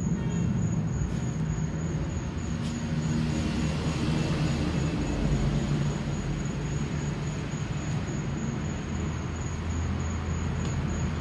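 Steady low mechanical hum, like a motor or distant traffic, with a thin, fast-pulsing high tone running over it.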